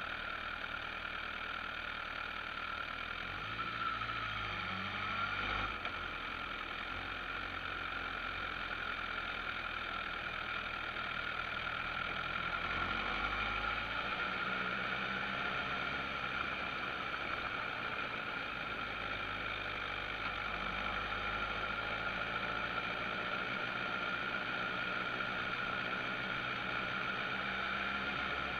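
Motorcycle engine running at low town speed with steady road and wind noise; the engine note shifts a few times as it slows and picks up again.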